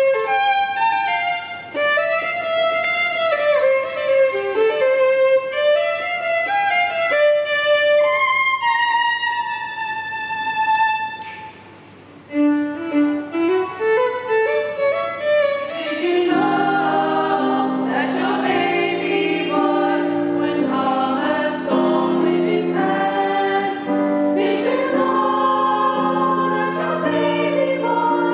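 Solo violin playing a slow, winding melody, with a short quieter passage around twelve seconds in. About sixteen seconds in it gives way to a choir singing in parts, fuller and steadier.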